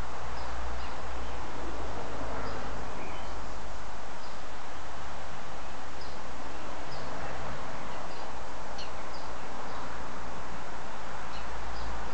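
Outdoor garden ambience: a steady rushing noise, with small birds chirping briefly now and then.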